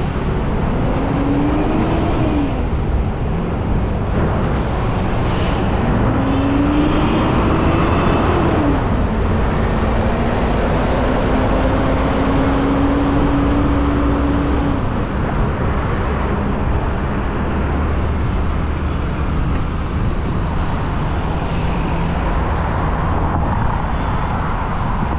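Road traffic close by: a steady rumble, with an engine's pitch rising and falling twice in the first nine seconds, then holding one steady note for about six seconds.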